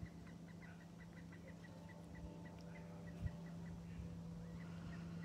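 A bird calling faintly: a rapid run of short high chirps, about five a second, over a steady low hum.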